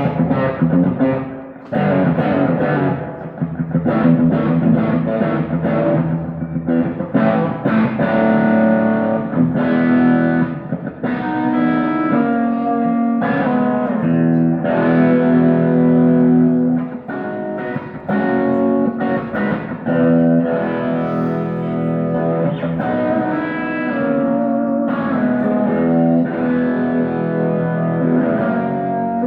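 Electric guitar played through an amplifier with overdrive, held notes and chords ringing out one after another.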